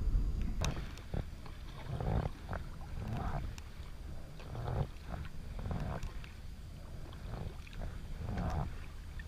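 Kayak paddle strokes in calm water: the blade swishes and splashes about once a second in a steady rhythm.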